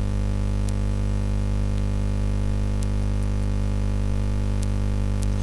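Steady electrical mains hum with its evenly spaced overtones, plus a few faint ticks.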